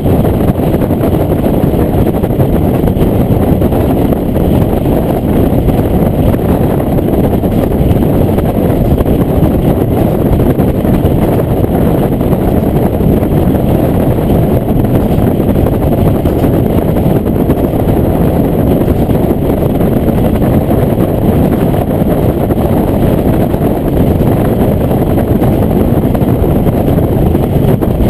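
Diesel railcar running along the line, heard from inside the car: a steady, loud rumble of engine and wheels on rail.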